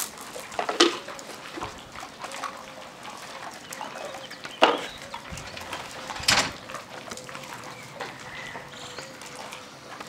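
A pack of Siberian huskies feeding on kibble, with a few short, sharp yelps or snaps among them: three loud ones, about a second in, past the middle and a little later, with softer short sounds in between.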